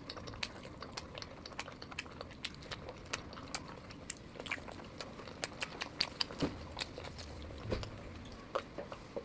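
Close-miked mukbang eating: a person biting and chewing food, with many irregular, quick wet clicks and smacks of the mouth.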